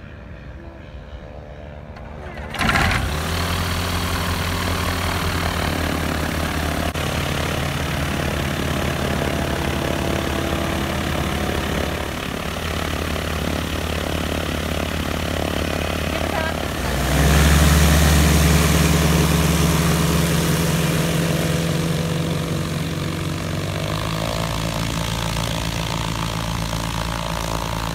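Light aircraft's piston engine and propeller running steadily on the ground, coming in suddenly about two and a half seconds in. It gets louder with a rise in engine speed about 17 seconds in, then eases back.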